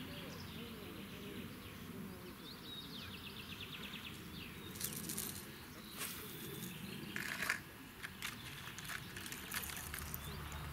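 Pond-side outdoor ambience with insects. A rapid, even run of ticks comes about three seconds in, then a scatter of sharp clicks and knocks through the second half, the loudest about seven and a half seconds in.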